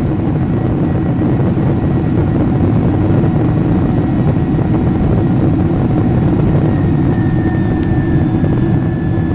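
Airliner cabin noise: a loud, steady low rumble from the engines and airflow. A faint high whine enters about seven seconds in and drifts slowly down in pitch.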